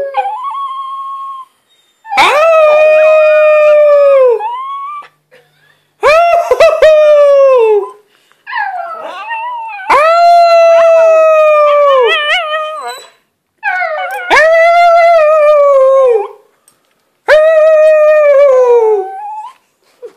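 Small dog howling in a high, squeaky voice: a run of about five drawn-out howls, each two to three seconds long and dropping in pitch at the end, with short breaks between them.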